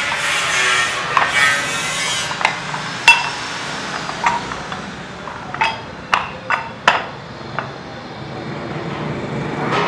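Metal fan blades being pushed and knocked into the slots of a cast metal impeller hub resting on a concrete floor: scraping and rubbing with a scatter of sharp metallic clicks, about eight, mostly in the middle few seconds.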